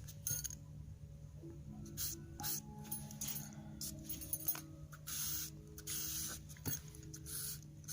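A pen or marker scratching across paper in short, irregular strokes while a symbol is drawn, over soft background music with steady held tones.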